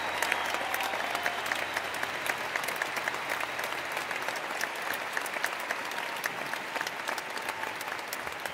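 Large arena audience applauding, a dense steady clapping that eases off slightly toward the end.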